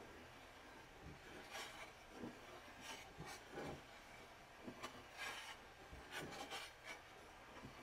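Faint gritty scraping of the end of an upright tube dragged in circles over a glass plate, laying down a spiral of yellow grains. It comes as a series of short, irregular strokes, grains grinding between tube and glass.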